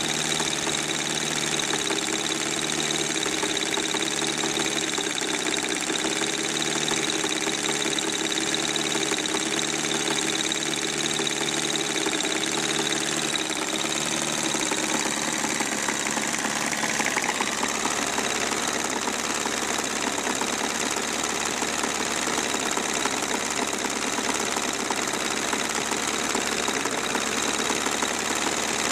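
Miniature four-cylinder, four-stroke diesel model engine with a cast-iron block running steadily at around 2200 rpm, with a rapid, even knocking beat. About halfway through, the sound changes as another small four-cylinder model engine is heard running.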